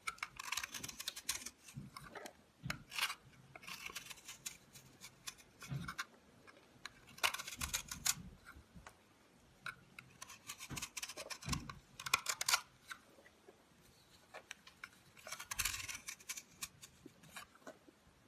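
Utility knife blade carving and shaving a crumbly block of soap: irregular clusters of crackly crunching and scraping strokes, with quieter pauses between them.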